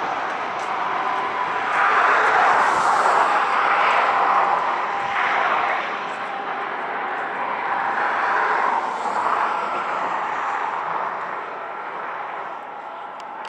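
Engine and motor noise swelling and fading several times, loudest from about two to five seconds in and dying away near the end.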